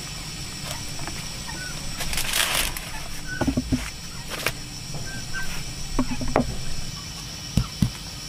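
Farmyard fowl making a few short chirps, with several sharp knocks and a brief rustle.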